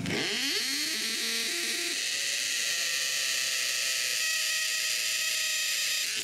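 An electric power tool's motor spins up at the start and then runs at a steady speed with a high whine.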